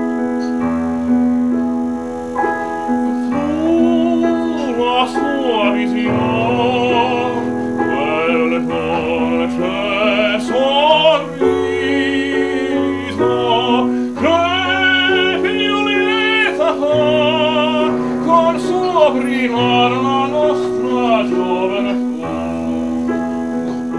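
Classical music: a high operatic voice singing with vibrato over piano accompaniment.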